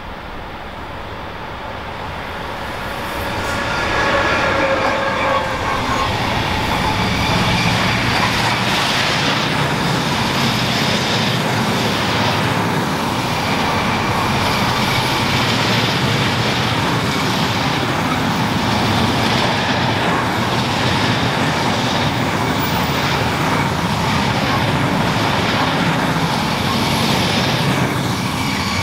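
Train passing close: a RoLa rolling-highway freight train of low-floor wagons carrying lorries rolls by with a loud, steady rumble of wheels on rail, with a clatter as each wagon passes. The noise swells over the first four seconds as the trains arrive and then holds steady.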